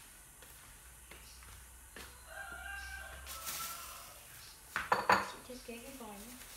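Clatter of kitchen dishes and utensils: a quick cluster of sharp clinks about five seconds in, against a quiet background.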